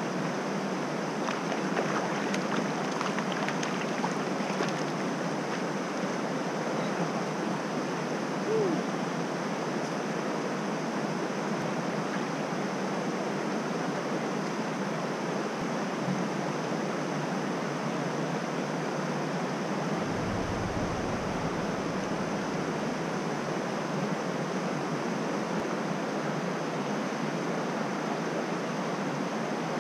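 Steady rushing of a small rocky trout stream flowing over stones.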